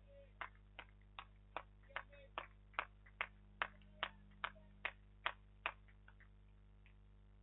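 One person clapping, slow and even, about fourteen claps at roughly two and a half a second, stopping a little under six seconds in. It is applause for a batsman reaching his fifty.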